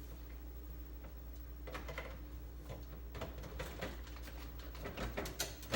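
Refrigerator drawers and bins being handled: scattered clicks and knocks that grow more frequent, the loudest near the end, over a steady low hum.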